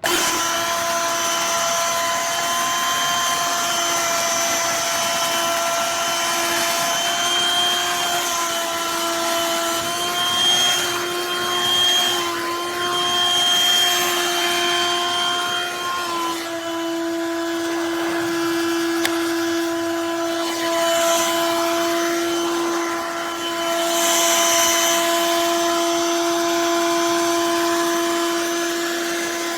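BLACK+DECKER Dustbuster 12V cordless handheld vacuum running continuously, its motor giving a steady whine over the rush of air. The pitch shifts slightly about halfway through.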